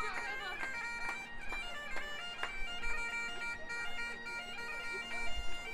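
Highland bagpipes playing a melody over steady drones, with several short sharp cracks.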